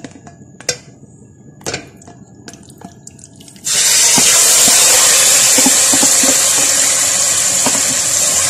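A few light knocks, then about four seconds in yogurt-marinated chicken drops into hot oil in a pot and starts sizzling loudly and steadily.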